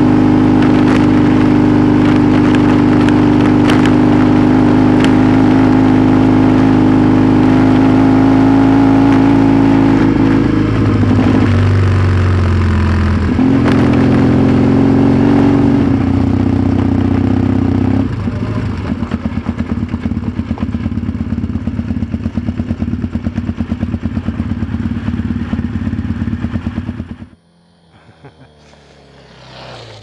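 Yamaha XTZ 750 Super Ténéré's parallel-twin engine heard from aboard the bike, running at steady revs, then changing pitch several times from about ten seconds in as the rider varies speed. It settles into a lower, pulsing run at low revs and then drops away suddenly near the end.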